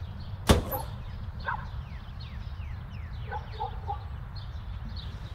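Birds chirping: repeated short falling chirps with a few lower call notes, over a steady low hum. A single sharp click about half a second in.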